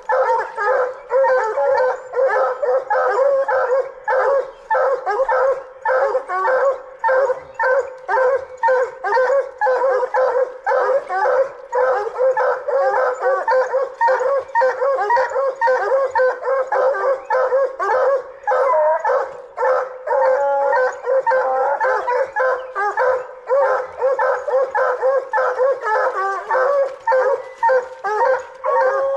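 Coonhounds barking at a tree they have treed on: a fast, unbroken run of overlapping barks from more than one dog, the treeing chop that tells hunters the hounds have a raccoon up the tree.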